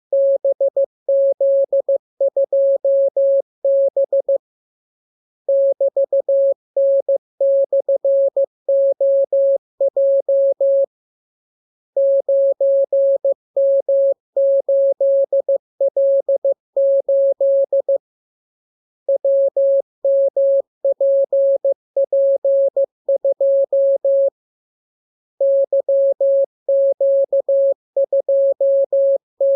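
Morse code sent as a single steady-pitched beep, keyed in quick, even dots and dashes, in runs of several characters with a pause of about a second between runs.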